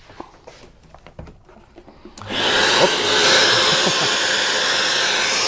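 A few faint clicks and handling noises, then about two seconds in a workshop vacuum extractor suddenly switches on and runs steadily. It started by itself: its auto-start socket sensed the current drawn by the plugged-in router's always-on LED light.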